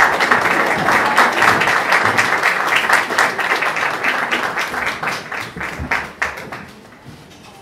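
Audience applauding, mixed with camera shutter clicks, dying away about a second before the end.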